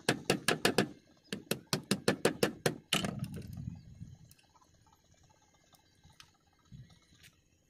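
Quick sharp knocks of the end of a plastic pipe striking snail shells on a wooden boat deck, about five a second for some three seconds, ending in one heavier knock with a low rumble after it. Then only faint handling sounds.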